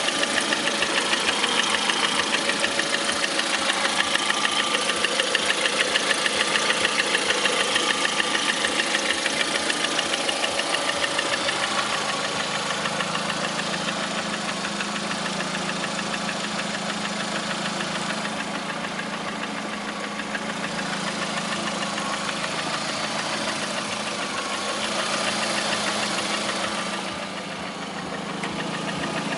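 Lada Priora's 1.6-litre 16-valve VAZ-21126 engine idling with a fast, regular knocking tap that started after a Suprotec additive treatment. The tapping is sharpest for about the first twelve seconds, after which a steadier hum comes up under it.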